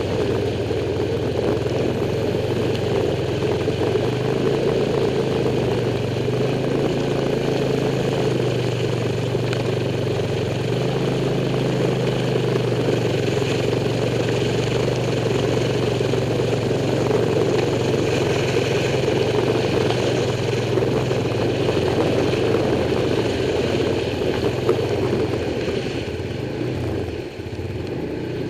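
Motorcycle engine running steadily while riding along a flooded street, with a steady rush of noise over it. The engine eases off briefly near the end.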